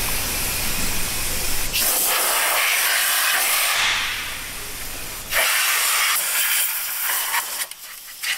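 Bursts of hissing from an aerosol cleaner spray can and a compressed-air blow gun, spraying cleaner onto greasy suspension and steering parts and blowing them down, with a brief pause near the end.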